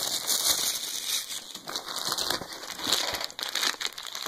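Clear plastic bag of metal miniature parts crinkling and rustling as it is handled, with many small crackles and clicks.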